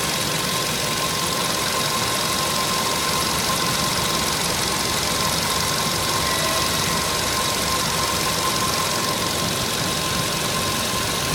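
Volkswagen Polo Sedan engine idling steadily, with a constant thin whistle from the accessory drive belt over the engine noise.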